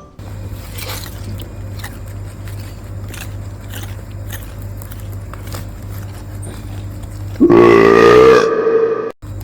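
Rabbit chewing basil: a quick, irregular run of small crunching clicks over a steady low hum. It is followed about seven and a half seconds in by a loud burp, about a second long.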